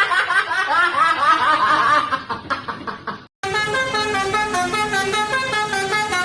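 Multi-tone 'telolet basuri' bus horn. It opens with a run of quick rising whoops that fades away. After a short break it plays a stepped multi-note tune.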